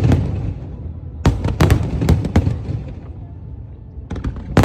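Fireworks exploding in volleys of sharp bangs, each trailing off in an echo. A cluster of several bangs comes about a second in, and another volley starts near the end.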